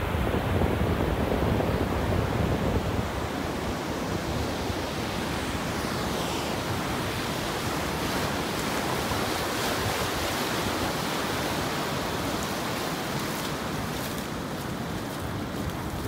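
Ocean surf washing steadily on a sandy beach, with wind buffeting the microphone most strongly in the first few seconds.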